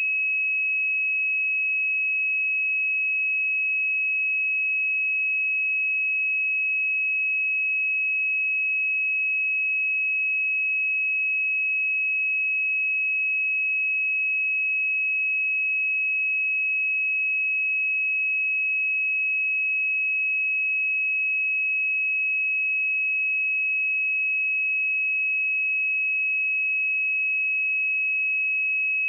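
A single pure sine-wave test tone at 2564 Hz, a steady high-pitched whistle held at a constant pitch and level.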